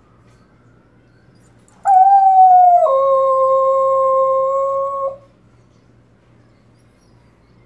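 Miniature Australian Shepherd giving one long howl, set off by sirens. It starts about two seconds in, slides down a little, drops suddenly to a lower note, holds it for about two seconds and stops.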